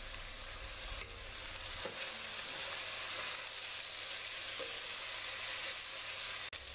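Sliced onions and garlic sizzling in hot oil in a stainless steel pot as they sweat over medium heat, stirred with a wooden spoon that scrapes and knocks lightly against the pan. The sizzle is a steady hiss that cuts out for an instant near the end.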